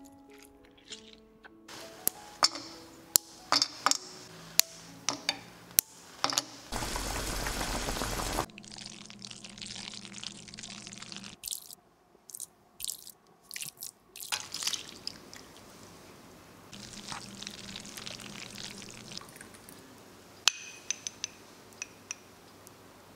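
Kitchen sounds of making chocolate sauce: sharp knocks and clicks of utensils, a spoon stirring thick melted chocolate in a ceramic bowl, and a whisk clinking against the bowl near the end. A few piano notes fade out at the start, and a loud stretch of rushing noise lasts about a second and a half early on.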